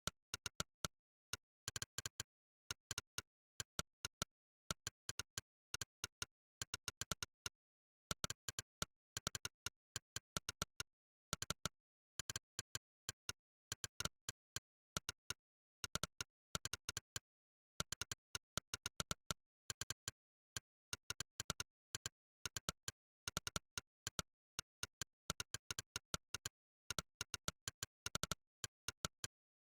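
Monkeytype's synthesized 'click' typing sound, one short click per keystroke, in fast irregular runs of typing broken by short pauses, with dead silence between clicks.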